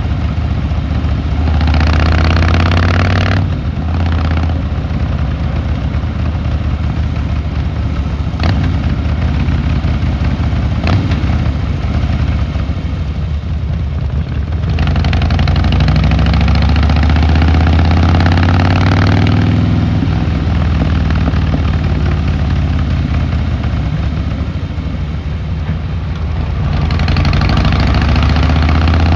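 Harley-Davidson Fat Boy Lo V-twin engine and exhaust running while riding, opening up and pulling harder three times with the throttle eased off in between.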